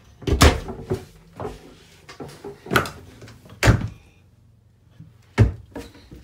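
Cabin cupboard and locker doors being opened and shut: a series of sharp knocks and thuds, the loudest about half a second in, near four seconds and about five and a half seconds in.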